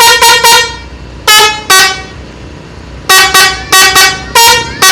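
Mustika Holiday bus's telolet musical air horns tooting a rapid string of short notes in changing pitches: a quick run of four right at the start, two more about a second in, then a faster run of about seven near the end.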